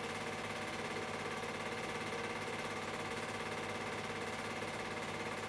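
A steady machine hum made of several fixed tones, holding an even level without change.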